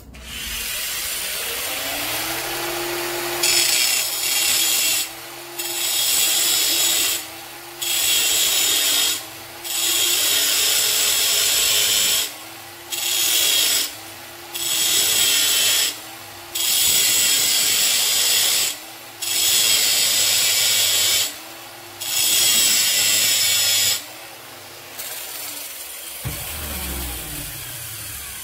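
Angle grinder running and pressed again and again against the edge of a metal pulley that spins on its bearing in a vise: about nine grinding passes of a second or two each, with the motor running free in between, then the motor winds down near the end. The grinding shapes the pulley's groove edges so a 19 mm tube will seat in it.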